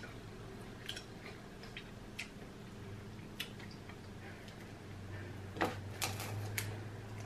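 Cooked crab leg shell cracking and snapping as it is pulled apart by hand: scattered, irregular sharp clicks and cracks, the loudest two a little past halfway.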